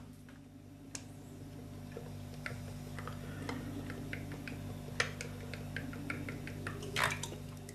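Cooking oil pouring in a thin stream from a plastic bottle into an empty nonstick frying pan, with scattered small clicks and ticks over a steady low hum; the loudest click comes about five seconds in.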